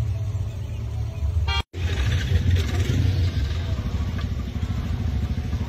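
Motorcycle and car engines idling in a queue of traffic, with a short horn toot about a second and a half in. The sound drops out for a split second just after it.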